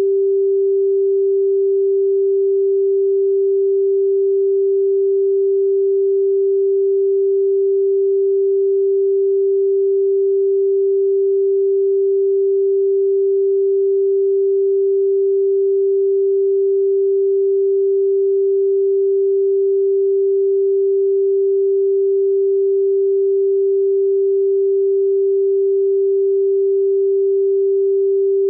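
A pure sine tone at 392 Hz, the pitch of G above middle C, held perfectly steady without any change in pitch or loudness.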